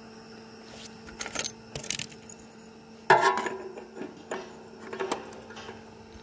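Light metallic clinks and knocks as a new abrasive cut-off wheel is fitted onto a chop saw's spindle, the loudest knock about three seconds in with a brief ring.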